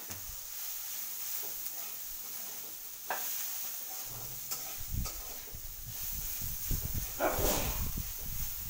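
Chopped onion and garlic sizzling in oil in a steel kadai while a spatula stirs and scrapes the pan, a steady hiss with separate scrapes about 3 and 5 seconds in and a louder stretch of scraping near the end. The onions are being fried until reddish-brown.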